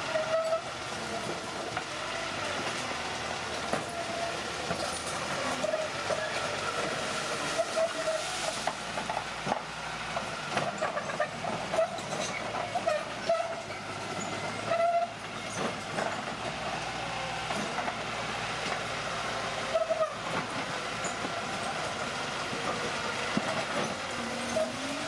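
Old crawler bulldozer at work: its diesel engine running, with repeated high-pitched metallic squeals and clatter from its steel tracks.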